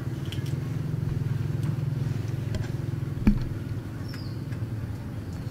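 A steady low motor hum, with one sharp knock about three seconds in as a corn cob is set down on a wooden table.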